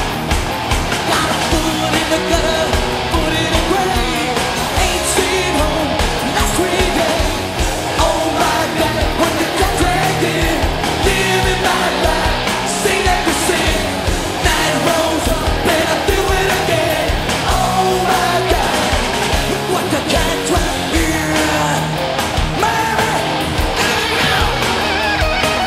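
Glam metal band playing live: distorted electric guitars, bass and drums with lead vocals sung over them.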